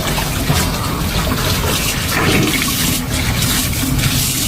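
Shower water running in a steady spray, splashing over a cat being bathed.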